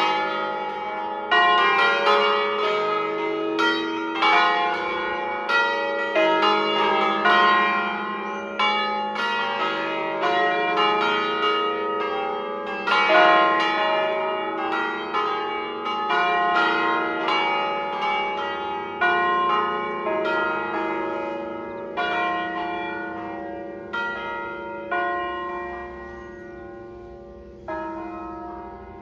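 A ring of five swinging church bells tuned in E-flat, cast by Crespi in 1853, ringing a short solemn Bergamasque-style concerto: overlapping strokes with long ringing tones. The strokes thin out over the last several seconds to a final stroke near the end, and the bells' hum then dies away.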